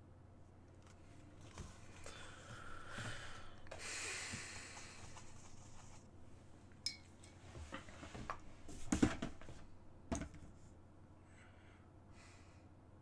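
Paintbrush scrubbing and scraping for a few seconds in the first half, then a series of sharp clicks and knocks from painting supplies being handled and set down on the desk, the loudest cluster about nine seconds in.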